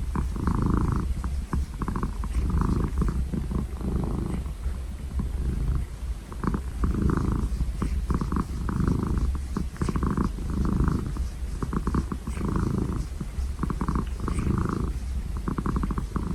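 A domestic cat purring steadily, its purr swelling and easing with each breath about every one and a half to two seconds.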